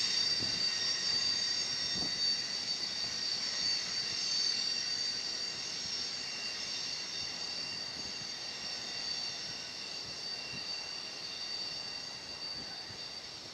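Wheels of a Union Pacific double-stack intermodal freight train squealing on a curve: several steady high-pitched tones that fade slowly as the train rolls away.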